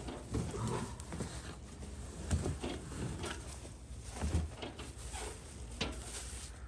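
Irregular knocks and thuds with some scraping between them, as dining set parts are handled during unboxing and assembly. The loudest thuds come a little over two seconds in and about four seconds in.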